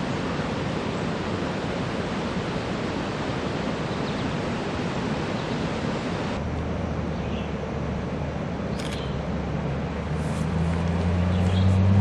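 Steady rushing outdoor noise, then from about halfway a low engine rumble of a passing motor vehicle that builds to its loudest near the end, with a few short bird chirps on top.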